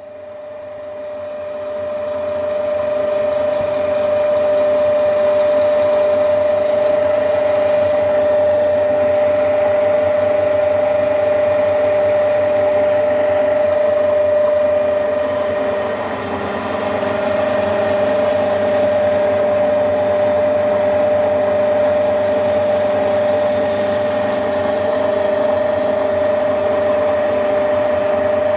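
Milling machine running, with a steady whine. The sound swells over the first few seconds and dips briefly about halfway through.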